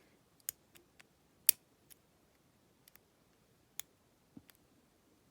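Lock pick and tension wrench working in a challenge padlock's keyway: a handful of small, irregularly spaced clicks as the pins are picked, the loudest about a second and a half in.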